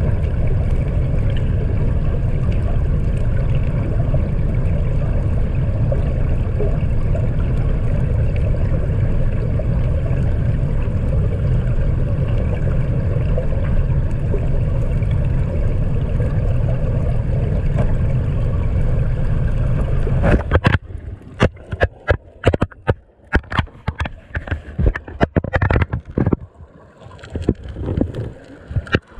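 Muffled, steady low rumble of river water moving past a submerged GoPro's waterproof housing. About two thirds of the way in the rumble cuts off and gives way to irregular sharp knocks and splashes.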